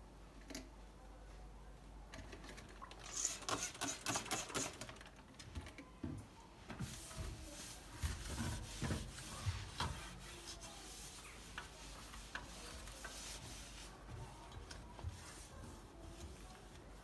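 Quiet household handling sounds: a quick run of light clicks and rattles about three seconds in, then several seconds of rubbing or scrubbing with a few soft knocks.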